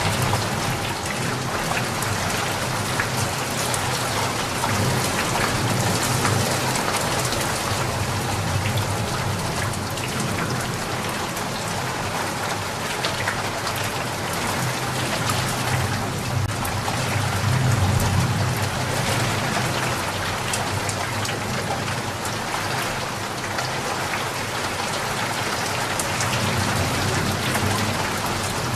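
Steady rain falling in a natural setting, a dense even patter throughout, under a low rumble that swells and fades a few times, loudest about eighteen seconds in.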